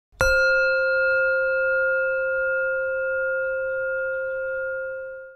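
A single struck bell tone, rung once about a quarter second in, ringing on with several clear overtones and slowly fading before it cuts off at the end.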